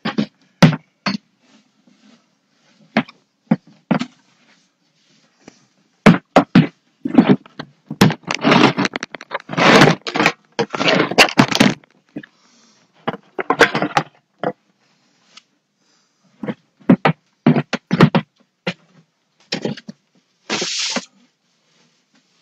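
Broom sweeping a floor: scraping strokes of the bristles mixed with sharp knocks and bumps, some close to the microphone, with a longer run of scraping in the middle and a short hissing stroke near the end.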